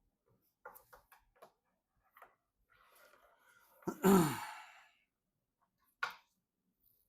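A short voiced sigh, falling in pitch, about four seconds in, amid a few light clicks and rustles of parts being handled.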